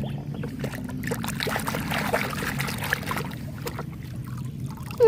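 Water sloshing and splashing as a muddy toy is washed by hand in a tub of water, with many small clicks and knocks from the toy being handled.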